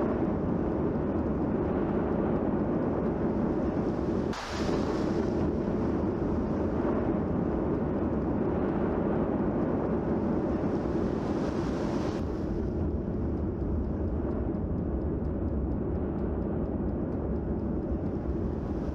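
Low, steady rumble of an erupting volcano. It dips briefly about four seconds in and loses some of its upper hiss about twelve seconds in.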